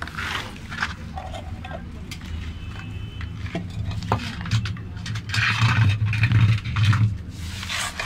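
An earthen clay dish of bird seed handled and scraped on a concrete floor as it is set down, with a few sharp clicks and rustling. A low rumble of handling noise is loudest about two-thirds of the way through.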